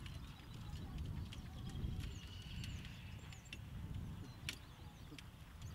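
A horse trotting in harness, pulling a four-wheeled driving carriage: hoofbeats on turf and the rattle of the carriage, with a few birds chirping about two to three seconds in.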